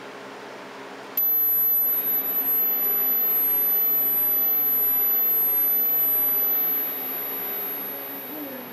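A steady pure test tone at 12,000 Hz, played through a flat-screen TV's speakers, comes on suddenly about a second in and holds at one pitch, over a steady hiss.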